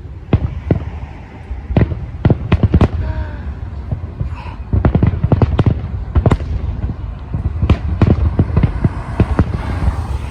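Fireworks going off in a rapid, irregular string of booms and cracks over a steady low rumble, several shells bursting close together around two, five and nine seconds in.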